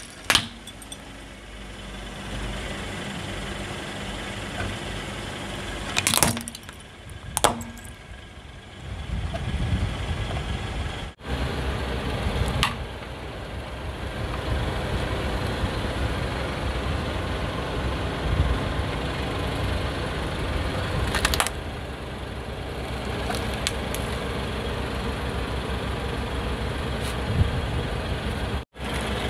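Car tyre rolling slowly over plastic toys, cracking and crunching them, over the steady low rumble of the car's engine. Sharp cracks come near the start, twice at about six and seven and a half seconds in, and again about twenty-one seconds in.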